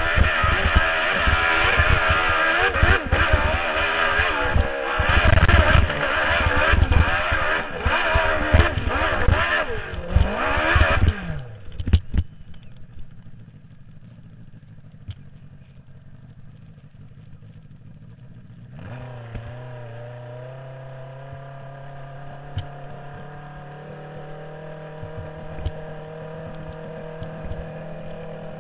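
Dirt bike engine at full throttle up a steep hillclimb, revs surging up and down with knocks and clatter from the rough ground. About eleven seconds in the engine note drops away to a faint low hum, and from about nineteen seconds a steady, low engine note runs on at easy revs.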